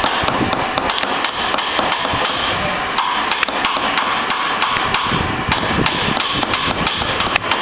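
Small hammer striking a hand-held metal punch in a metalwork workshop: quick, irregular sharp taps, several a second.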